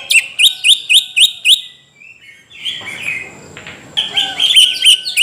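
Greater green leafbird (cucak ijo) singing loudly: a fast run of sharp, rising whistled notes, about five a second, then a softer warbling phrase, then another fast run near the end.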